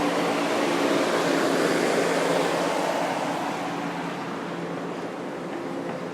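Street traffic: a motor vehicle passes close by, its noise swelling to a peak about two seconds in and then fading, over a steady low engine hum.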